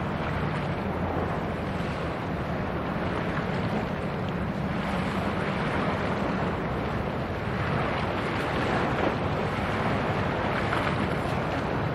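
A cargo ship's engine running with a steady low drone, under the rush of wind on the microphone and moving water.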